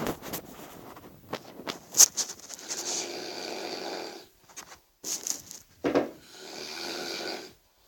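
A person snoring very loudly: two long snores of about a second and a half each, with short sharp clicks and snorts in the gaps between them.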